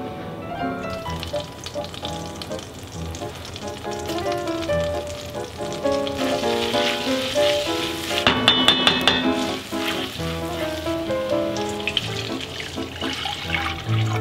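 Chopped garlic sizzling in melted butter in a pot, the sizzle growing stronger a few seconds in, over background music.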